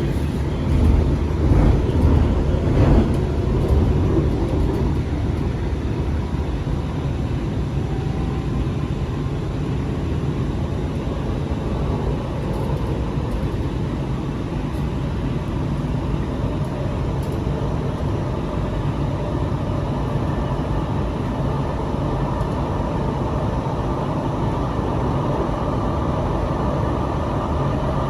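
Sound Transit Series 2 light rail car running, heard from inside: a steady low rumble of wheels and running gear, with a few knocks in the first seconds and a faint whine coming in near the end.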